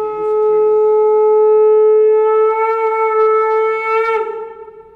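Conch shell (shankh) blown in one long, steady, loud note that bends slightly upward near the end and stops about four seconds in.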